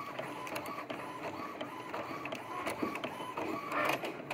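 Epson EcoTank ET-7700 inkjet printer printing: the print-head carriage whirs back and forth in a regular rhythm about twice a second, with small mechanical clicks.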